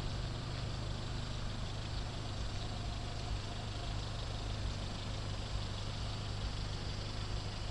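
Renault Scénic's engine idling steadily.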